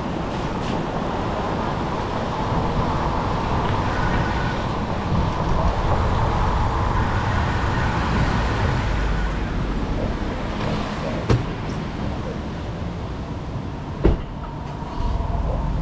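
City street traffic heard from a moving bicycle: a steady noise with a deep rumble, broken by two sharp knocks, one about two-thirds of the way through and one near the end.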